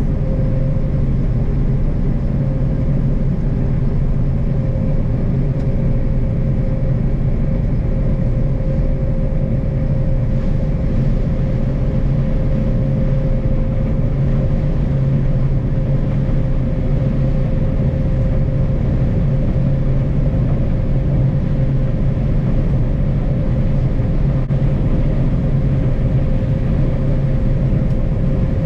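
Heavy harvest machinery running steadily under load: a constant low drone with a thin, steady whine above it and no change in speed.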